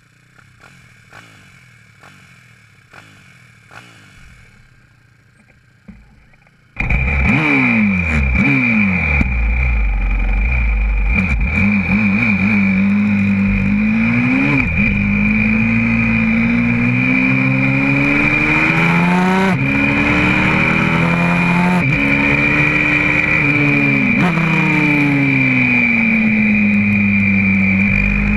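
YCF 125cc four-stroke pit bike engine heard from on board: it idles faintly for about seven seconds, then the sound jumps abruptly to the engine running hard, its pitch rising and falling repeatedly with throttle and gear changes, over a steady high whine.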